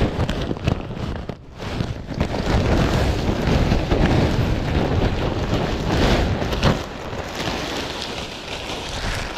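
Bagged wood-chip mulch being poured out of its plastic bag onto a garden bed: a steady pour of chips with the bag rustling, loudest in the middle.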